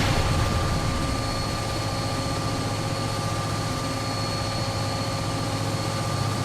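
Diesel locomotive engine idling steadily: a low drone with a few fixed higher tones over a hiss.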